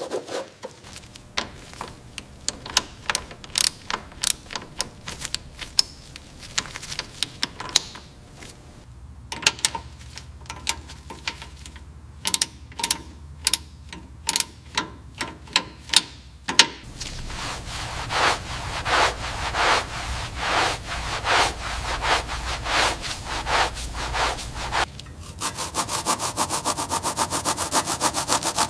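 Hand restoration work on car parts: a run of scraping and rubbing strokes, irregular and separate at first. From about halfway through they become a denser, continuous rubbing, like sanding. Near the end the strokes turn fast and evenly spaced.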